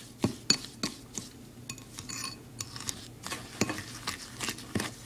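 A metal fork stirring and mashing softened butter and sugar in a ceramic bowl, the tines clinking against the bowl in irregular taps, a few each second.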